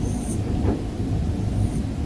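A sleeping pet rabbit snoring: short, faint, hissy snuffling breaths at the start and again near the end, over a steady low rumble.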